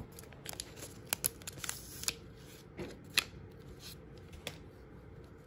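Crinkling wrapper of a 2021 Topps Archives baseball card pack being opened, a string of sharp crinkles, then the stack of cards slid out of it.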